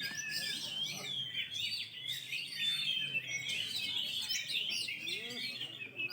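Several oriental magpie-robins (kacer) singing at once in contest cages: a dense, continuous tangle of rapid, gliding whistles and chirps, some birds overlapping others.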